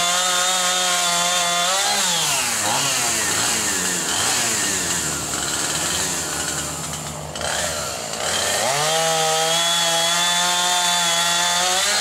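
Husqvarna two-stroke chainsaw held at full throttle, then dropping in pitch and wavering unevenly about two seconds in as it bogs while cutting limbs of a downed pecan tree. It climbs back to full throttle about nine seconds in and holds there until it drops again near the end.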